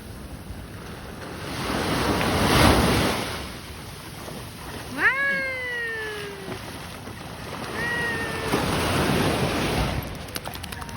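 Surf washing on the beach in swells, with wind on the microphone. About five seconds in, a pitched call rises sharply and then slowly falls for about a second and a half, and a shorter one follows near eight seconds.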